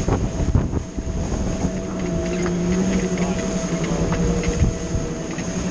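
Multi 50 racing trimaran sailing at high speed: water rushing past the hulls and wind buffeting the microphone, over a steady low hum that grows stronger about a second and a half in.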